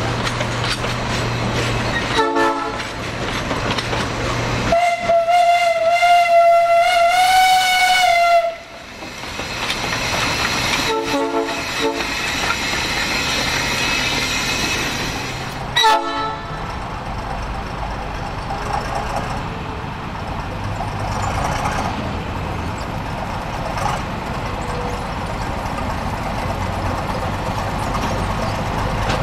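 Narrow-gauge steam locomotive's whistle sounding one long, steady blast about five seconds in, with short chopped bursts of sound before and after it over the running noise of the train. In the last part a small diesel locomotive's engine runs steadily.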